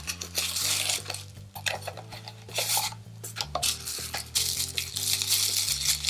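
A small cardboard box is handled and opened, and protective plastic wrap crinkles and rustles as it is pulled off a keychain remote, in repeated short bursts of rustling. Soft background music with low held notes runs underneath.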